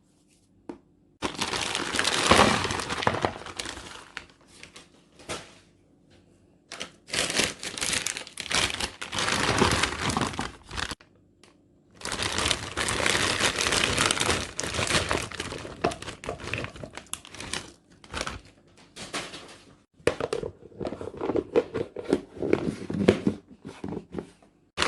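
Plastic food packaging crinkling and rustling as packs are handled, in several long stretches with short pauses between.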